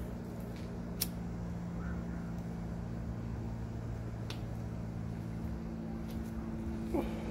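Chevrolet Silverado Z71 pickup's engine idling with a steady low hum, with a light click about a second in and another about four seconds in.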